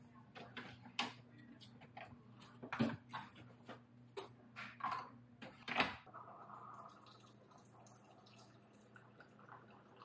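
Keurig single-cup coffee brewer being handled: a series of plastic clicks and knocks as its lid is worked, the loudest about six seconds in, then a faint steady hum as the brewer runs.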